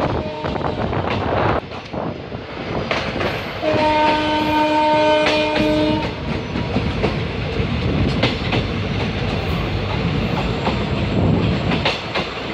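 Passenger train running along the track, heard from aboard: wheels clicking over rail joints over a steady rumble. A few seconds in, a train horn sounds one steady blast of about two seconds.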